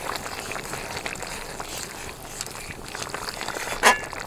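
Fish curry boiling in a metal wok, an even bubbling hiss, with a brief metallic clink of the spatula against the pan about four seconds in.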